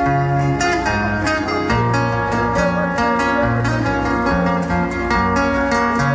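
Recorded dance music played loud over a sound system, with a steady beat, a repeating bass line and a plucked-string, guitar-like melody.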